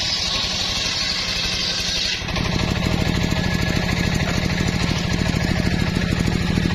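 Homemade engine-driven circular saw bench ripping a board of old mahogany, the blade's high cutting hiss ending about two seconds in as the cut finishes. The saw then spins free with its engine running steadily.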